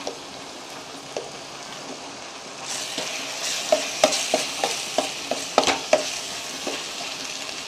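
Onions and tomatoes frying in a stainless steel pot with a steady sizzle. About three seconds in the sizzle grows louder as a metal spoon starts stirring in the chilli powder, with a run of quick taps and scrapes of the spoon against the pot.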